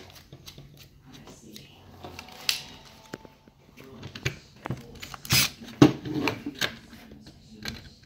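Clicks and scrapes of a cordless drill's chuck being handled, then the drill runs in several short bursts, about five seconds in, as its bit bores into a metal rivet on a plastic armour belt.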